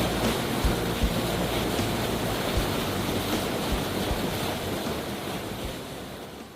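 Waterfall water rushing as a steady, dense noise, with a few low wind buffets on the microphone, fading out near the end.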